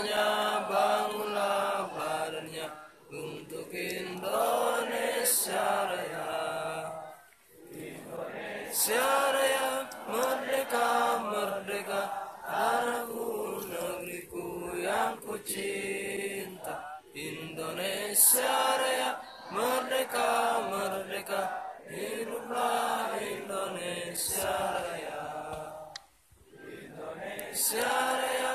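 A group of voices singing together in slow, drawn-out phrases, with short breaks every few seconds.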